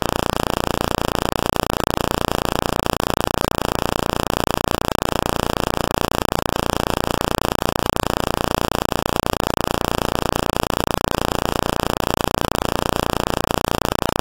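Loud, steady electronic static: a flat hiss-like noise across all pitches that neither rises nor falls. It switches on abruptly and runs without change, an audio fault on the footage rather than a sound from the game.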